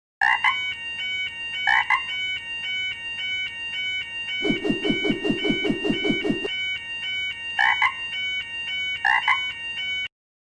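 Cartoon railroad crossing alarm, an electronic warning bell alternating between two tones about three times a second, starting and stopping abruptly. Two pairs of short, louder tones come in near the start and near the end, and a fast run of low knocks, about seven a second, sounds for two seconds in the middle.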